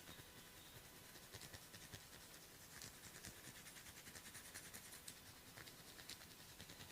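Faint, irregular dry scratching and crackling of fingers working through hair and over the scalp during a head massage.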